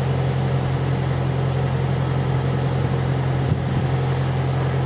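The crane's engine runs steadily at a constant speed, giving a low, even hum. A single light knock comes about three and a half seconds in.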